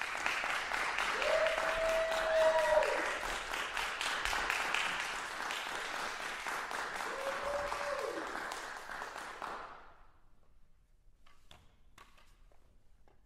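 Audience applauding, fading out about ten seconds in; a few faint clicks follow near the end.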